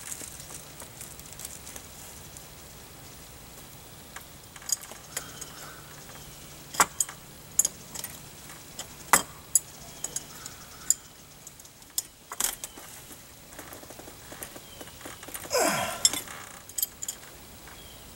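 Scattered metal clicks and clinks of brass line-set fittings and an adjustable wrench being handled, the sharpest ones between about five and eleven seconds in. About three-quarters of the way through comes a louder, brief sound whose pitch falls.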